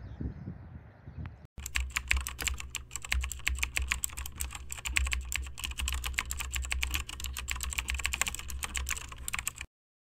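A dense run of fast, irregular clicks over a steady low hum. It starts abruptly about a second and a half in and cuts off suddenly just before the end. Before it there is faint outdoor wind noise.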